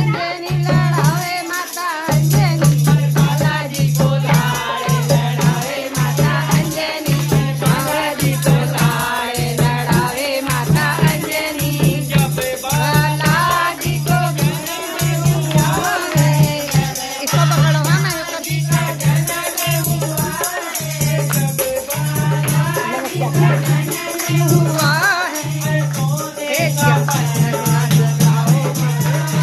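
A group of women singing a Hindu devotional kirtan together, with hand-clapping and rattling percussion keeping a steady beat.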